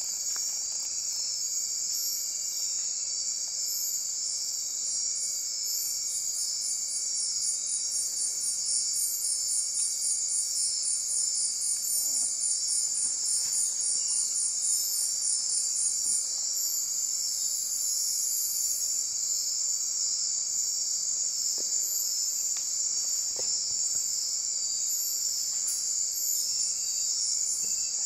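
Night chorus of insects: a dense, steady high buzzing, with a higher pulsed call repeating about three times a second that starts about six seconds in and stops some ten seconds later.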